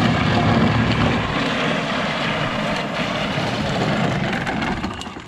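12-volt Power Wheels Kawasaki KFX ride-on quad driving on asphalt: its hard plastic wheels rumble and grind on the rough surface over the hum of its electric drive motors, a loud steady noise.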